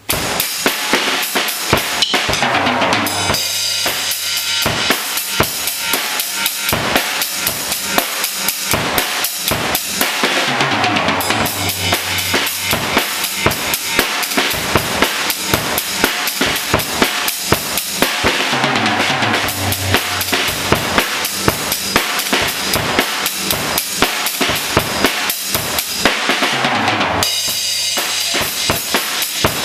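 Acoustic drum kit playing a steady funk groove of kick drum, snare and cymbals, with a fill down the toms about every eight seconds.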